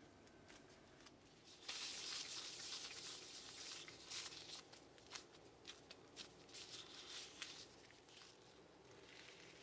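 Faint crinkling of thin disposable plastic gloves as hands roll a ball of soft dough, a steadier rustle for about two seconds, then scattered light rustles and taps as the ball is pressed flat on a silicone mat.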